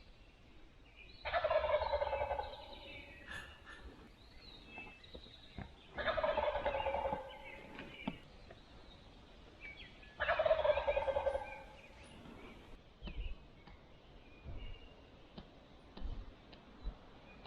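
Wild turkey gobbler gobbling from the roost three times, about four seconds apart, each gobble lasting about a second.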